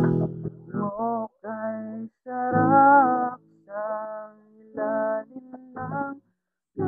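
A voice singing a slow melody in short separate phrases with pauses between them, sounding thin and muffled.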